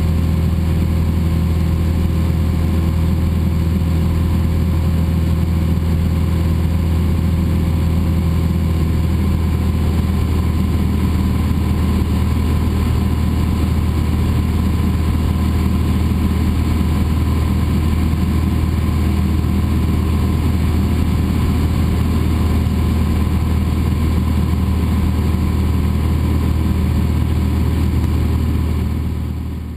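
Cessna 172's piston engine and propeller droning steadily in flight, heard from inside the cabin. The sound fades out at the very end.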